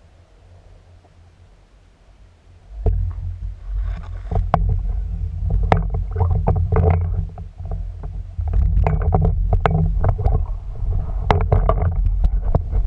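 Underwater, muffled through a camera housing: a quiet stretch, then from about three seconds in a loud low rumble of water moving over the housing, with many sharp clicks and knocks as the shaft and camera are handled.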